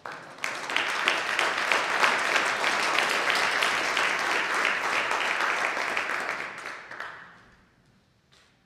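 A crowd applauding, a dense patter of many hands clapping that begins right away and dies out about seven seconds in.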